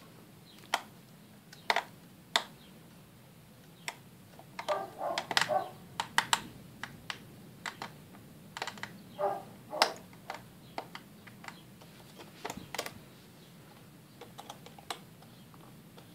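Irregular clicks and light taps of a small Phillips screwdriver and loose screws against the white plastic case of a 2007 MacBook as screws are backed out of the battery bay, with a few short bursts of handling noise.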